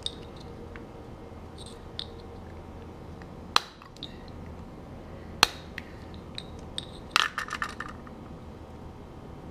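Utility knife cutting plastic tabs off a jet-ski throttle switch: two sharp snaps about two seconds apart, then a short rattle of clicks about seven seconds in.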